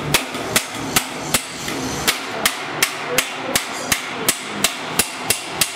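Hand hammer beating galvanized sheet steel against a steel bar: sharp metallic blows at a steady pace of about three a second.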